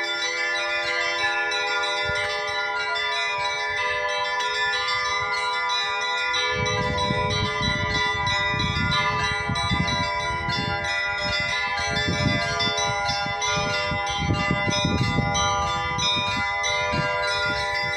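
Russian Orthodox church bells ringing, several bells of different pitches struck over and over so that their tones overlap and hang in the air. From about six seconds in, a low, irregular rumbling noise runs underneath the bells.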